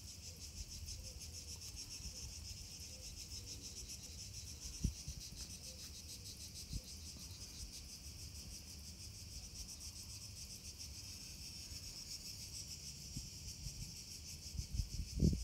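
Steady, high-pitched, rapidly pulsing trill of chirring insects, with two soft low knocks in the middle and low rumbling noise coming in near the end.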